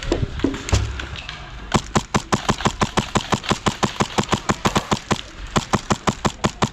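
A fast, even series of sharp clicks, about five a second, starting nearly two seconds in, pausing briefly and then going on.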